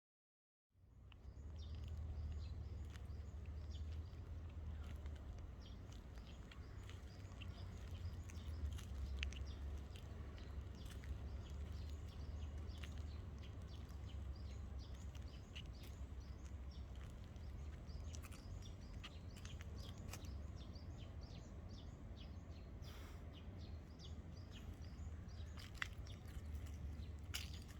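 Faint outdoor ambience: a steady low rumble with many scattered short high chirps and ticks, starting just under a second in.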